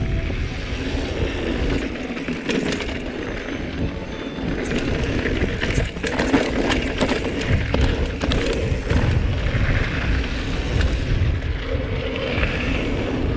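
Giant Anthem full-suspension mountain bike rolling fast down a dirt trail: tyres crunching and the bike rattling and clattering over rough ground, densest in the middle, with wind buffeting the camera microphone as a heavy low rumble.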